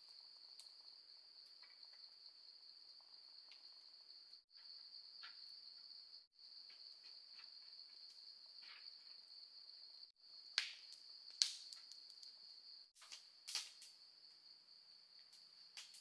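Crickets or similar insects trilling on one steady high note, which breaks off briefly four times. Three sharp knocks stand out over it in the second half.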